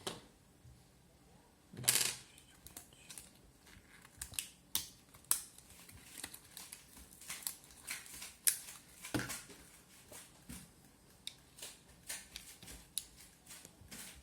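Irregular small sharp clicks and taps of a Mazda 6 key fob's plastic shell and CR2025 coin-cell battery being handled and fitted, with the loudest clicks about two seconds in and again about nine seconds in.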